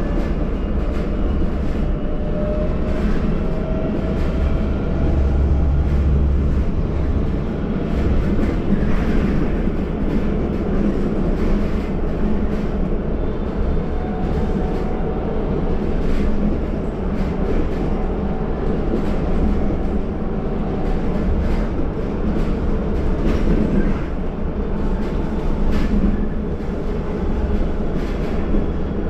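City bus in motion heard from inside the cabin: a steady loud rumble of drivetrain and road noise, with a faint whine above it.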